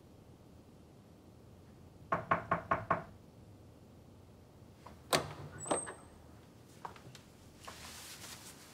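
Five quick knocks on a door, then about two seconds later two sharper clacks as the door is opened. A soft rustle follows near the end.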